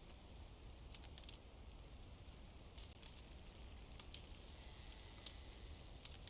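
Campfire crackling softly, with scattered sharp snaps and pops from the burning wood.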